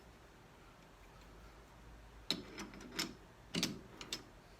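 Sharp metallic clicks and ticks, about half a dozen in the second half, from a metal lathe's spindle and gearing being turned by hand while tapping a blind hole.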